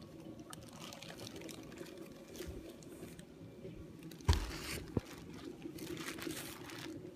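Handling noise from moving a boxed speaker and its packaging: faint rustling and shuffling of cardboard and plastic wrap, with a sharp knock about four seconds in and a smaller click a moment later.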